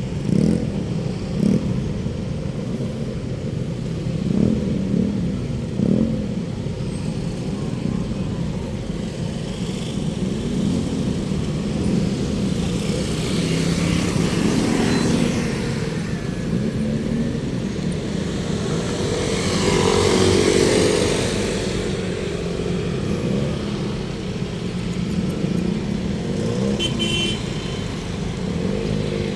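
City street traffic: motorcycles and cars passing, engine pitches rising and falling, with one vehicle passing louder about twenty seconds in.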